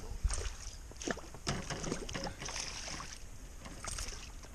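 Water splashing and sloshing against a small inflatable boat as a hooked chain pickerel thrashes at the surface beside it, with scattered short knocks and clicks and a low wind rumble.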